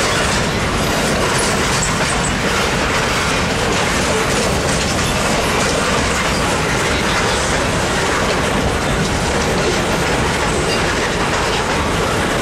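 Freight train of boxcars rolling past at close range: steel wheels running on the rails in a loud, steady, unbroken noise.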